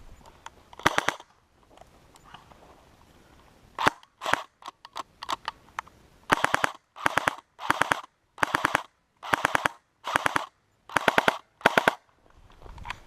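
Airsoft gun firing short full-auto bursts of rapid shots: a burst about a second in, a few more around four seconds, then about seven bursts in quick succession in the second half.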